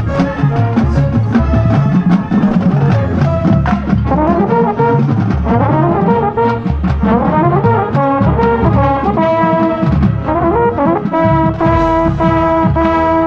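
High school marching band playing its show music, heard up close from a mellophone in the horn line: full brass over low drums, with quick rising and falling runs in the middle and a loud held chord near the end.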